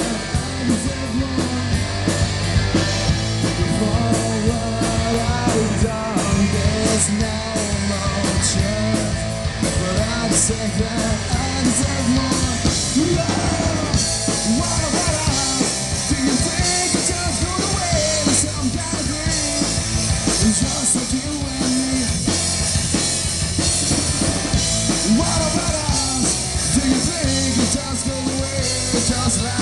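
Punk rock band playing live: a singer sings over electric guitar and a drum kit with Paiste cymbals, the cymbals crashing throughout.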